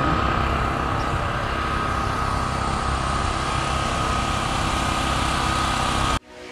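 A small engine or motor running steadily with a constant high whine over a dense rumble, cut off suddenly near the end.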